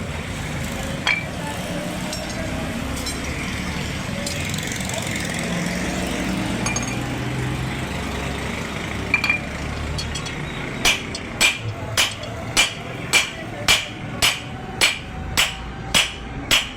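A hammer beating metal on an anvil in a steady rhythm of a little under two blows a second, starting about two-thirds of the way in, each blow ringing. Before that there is only steady background noise with a few scattered clinks.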